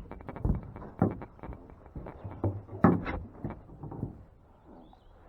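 Irregular knocks, clunks and rattles from handling fishing gear in a small boat, with the loudest thump about three seconds in.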